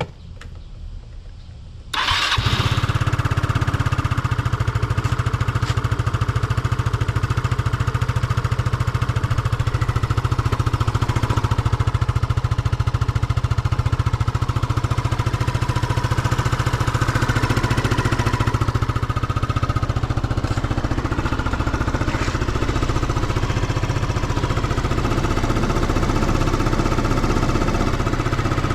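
Yamaha Cygnus X 125 cc scooter engine starting about two seconds in, then idling steadily. The seller reports no abnormal noise.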